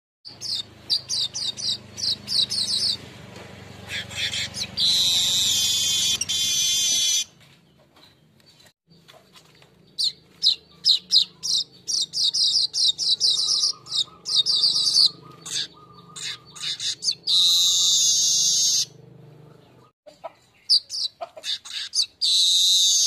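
Golden-headed manyar (weaver bird) song: runs of rapid, sharp chirps that build each time into a long buzzy wheeze, three times over.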